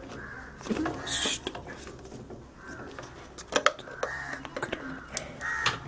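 Handling noise as an IDE ribbon cable connector is pushed onto the pins of an optical drive: a few light clicks and knocks of plastic and metal, mostly in the second half, with some low murmured words.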